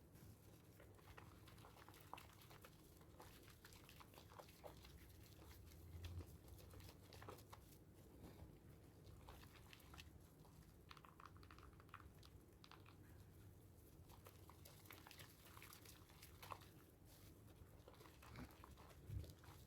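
Faint, soft crackling and squishing of thick soap lather being worked, made from sea salt and charcoal soaps, with scattered small clicks.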